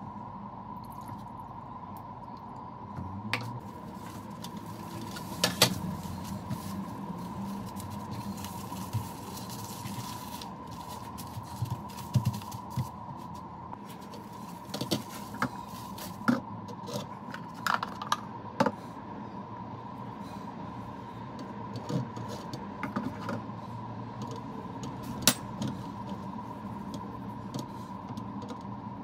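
Kitchen handling sounds: scattered sharp clinks and knocks of a ceramic juicer and bowl and a stainless steel tray being moved and set down, with the soft rubbing of hands patting salmon with paper towels and dredging it in cornstarch. A steady faint tone hums underneath.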